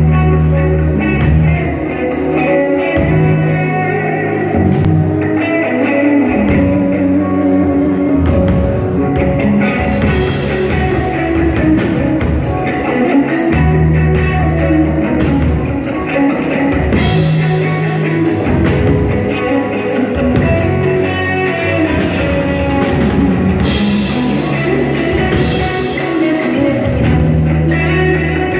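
Band playing a rock-style piece: an Ibanez electric guitar with DiMarzio and Seymour Duncan pickups, played through an amplifier, over sustained bass-guitar notes and drums.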